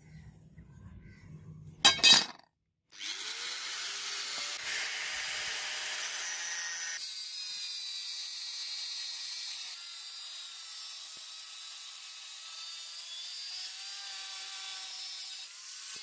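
A brief loud clatter about two seconds in, then an angle grinder spins up with a rising whine and cuts steadily into the steel tang of a bill hook blade.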